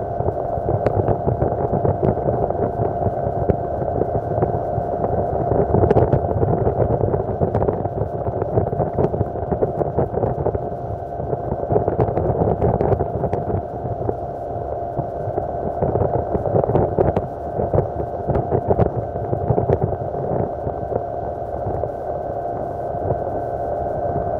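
Yamaha 40 hp two-stroke outboard motor running steadily with the boat underway, a constant drone with a steady higher tone, plus scattered short ticks.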